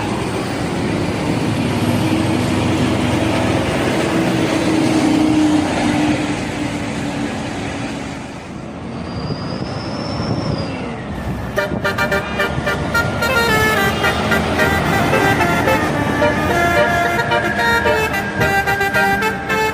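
Road and bus engine noise, then from a little past halfway a bus's telolet horn, a set of electrically switched air trumpets, playing a tune of quick, changing multi-tone notes.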